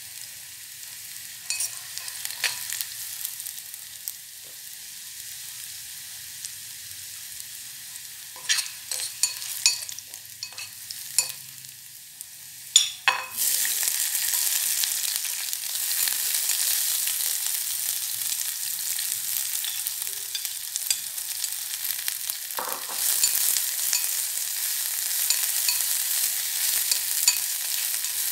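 Food frying in hot oil in a pot: a steady sizzle with scattered clicks and knocks of a utensil stirring against the pot. About halfway through the sizzle suddenly grows louder and stays loud.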